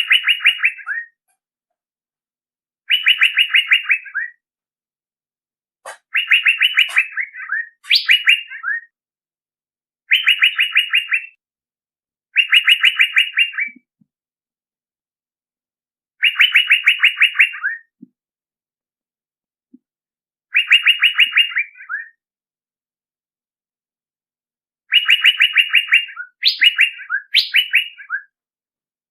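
Male Asian fairy-bluebird (cucak biru) calling: a short phrase of quick, even notes, repeated every few seconds, with some phrases ending in higher rising notes. It is a lure call (suara pikat) used to draw in birds of the same species.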